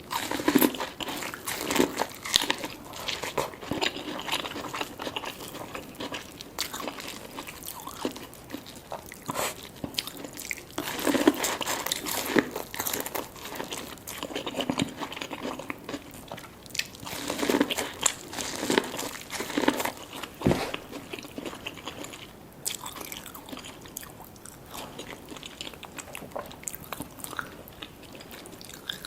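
Eating sounds from a seafood boil of lobster tail and sweet corn: repeated crunchy bites and chewing, coming in irregular clusters of short clicks with brief pauses between.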